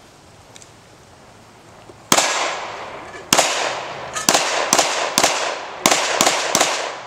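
Handgun fired in a fast string of about nine shots, starting about two seconds in, some in quick pairs, each crack followed by a short echo.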